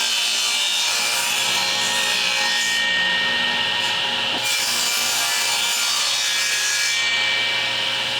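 Table saw running and ripping a board into an inch-wide strip: a steady motor hum under loud blade hiss. The high hiss eases for a moment about three seconds in and again near the end.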